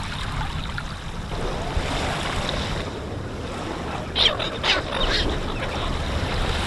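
Steady rush of flowing water, with a few short high chirps about four seconds in.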